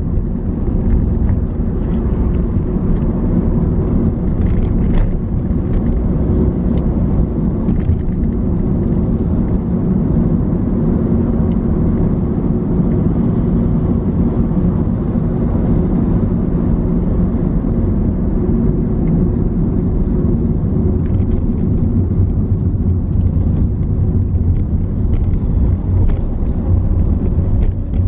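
Steady low rumble of road and engine noise from a vehicle driving slowly in heavy traffic.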